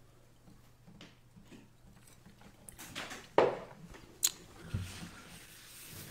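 Faint handling noise: a few sharp knocks and clicks with some rustling from about three seconds in, over a low steady electrical hum.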